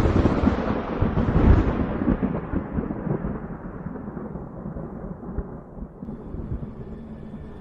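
A thunder clap that hits suddenly and rolls away in a long rumble, with a second surge about a second and a half in, fading over several seconds.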